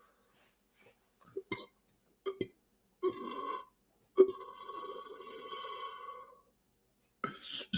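A man swallowing air with small mouth and throat clicks, then belching: a sudden start about four seconds in runs on as a long, drawn-out burp lasting about two seconds.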